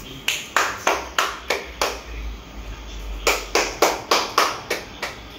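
Hand clapping: two runs of about six sharp claps each, at roughly three claps a second, with a pause of a second or so between the runs.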